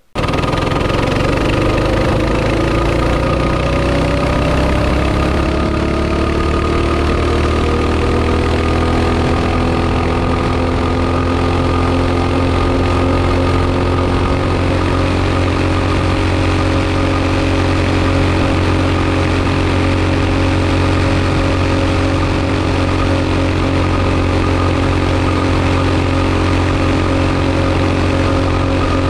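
Hot-rodded mini bike engine with an oversized 22 mm carburetor, running under throttle on a test pass after a jetting change. Its pitch climbs over the first ten seconds or so as the bike speeds up, then holds steady.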